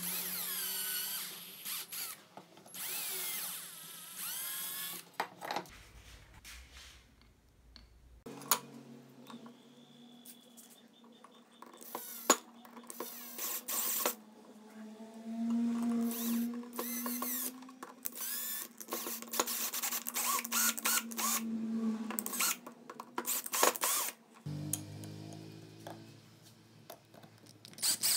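Power drill running in a series of short bursts, its speed rising and falling, first drilling holes into wood and later driving small screws into wood.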